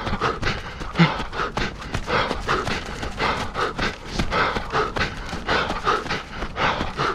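A runner's feet striking a trail in a steady running rhythm, with hard breathing.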